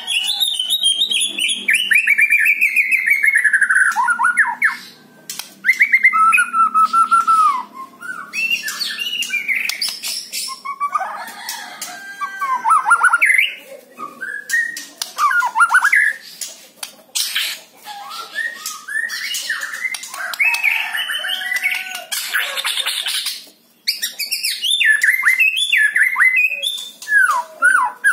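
White-rumped shama singing a long, varied song of quick whistled notes that slur up and down, mixed with harsher rasping notes, in bursts with short breaks between phrases. It opens with a falling run of notes.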